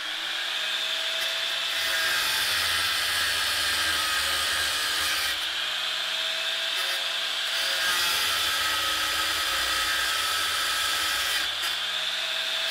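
Angle grinder grinding down the rusted handle pins on a steel machete tang held in a vise. Its motor whines steadily over a rough grinding hiss, the pitch dipping and recovering several times as the disc is pressed onto the steel.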